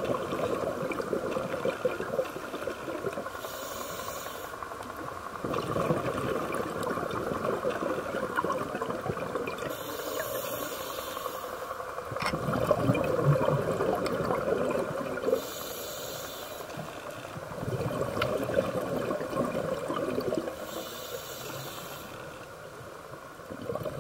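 Scuba diver breathing through a regulator underwater: a short hiss on each inhale about every five to six seconds, each followed by a longer rush of exhaust bubbles. Steady muffled water noise lies under it all.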